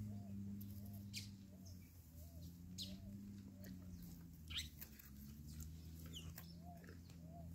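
Faint, soft clucking of a domestic hen, short calls about two a second that stop for a few seconds in the middle and then return. A steady low hum and a few sharp clicks sound underneath.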